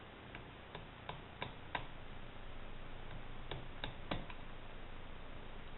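Light, irregular taps of a rubber stamp being pressed and tapped onto an ink pad to ink it: about five in the first two seconds, then three more about three and a half seconds in.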